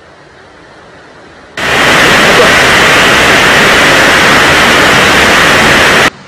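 Heavy rain falling on a tiled roof: a loud, steady hiss that cuts in suddenly about one and a half seconds in and stops just as suddenly near the end, with a much fainter rain hiss before it.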